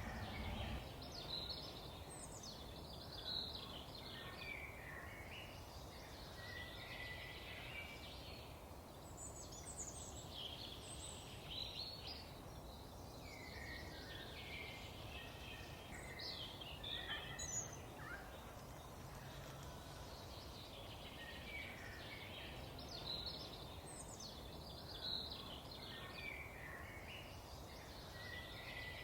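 A songbird singing repeated short chirping phrases every few seconds, over a steady low background noise.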